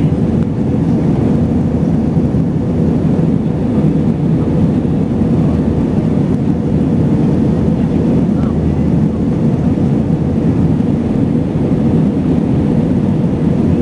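Airbus A320 airliner in flight after takeoff: steady engine and air noise, an even low rumble with a faint steady hum above it.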